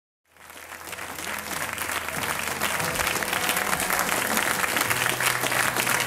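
Concert audience applauding, a dense patter of many hands, fading in over the first couple of seconds.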